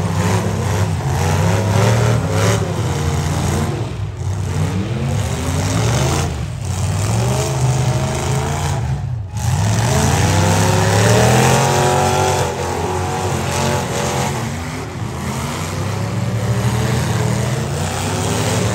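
Engines of limited-weld demolition derby cars revving hard, their pitch repeatedly rising and falling as the drivers throttle up and back off, with a brief drop about nine seconds in.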